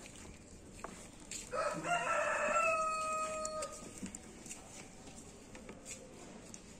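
A rooster crowing once: a single drawn-out call of about two seconds, starting about a second and a half in. Faint clicks of plastic wiring connectors being handled can be heard around it.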